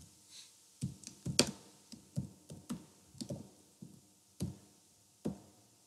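Computer keyboard keystrokes: about a dozen irregular key clicks in short runs, with pauses of up to about a second between them.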